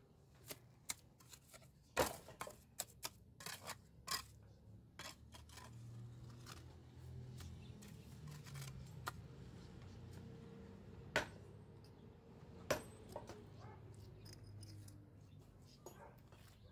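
Sharp clinks and taps of a mason's tool on stone and mortar, scattered and irregular, loudest about two seconds in and again near the middle, over a low hum.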